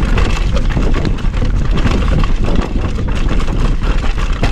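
Mountain bike riding fast down a rough trail, with heavy wind buffeting the microphone and constant rattling and knocking from the bike over roots and rocks. A sharp knock near the end as the wheel rim strikes a rock.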